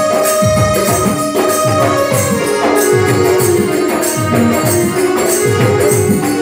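Live folk-style band music: a keyboard melody over a double-headed barrel drum whose deep strokes drop in pitch, with tambourine-like jingles keeping time.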